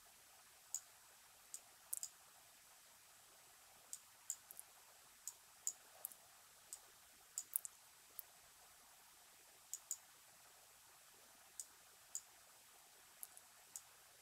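Computer mouse clicking: about twenty short, sharp clicks, single or in quick pairs at irregular intervals, over near silence, as chess pieces are picked up and dropped in a fast online game.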